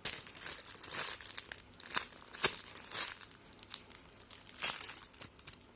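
Plastic packaging bag crinkling and crackling irregularly as a squishy toy inside it is handled, with one sharp snap about two and a half seconds in.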